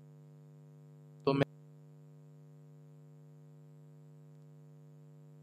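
Steady electrical mains hum in the recording, a low buzz with a ladder of overtones. A brief burst of voice about a second and a half in.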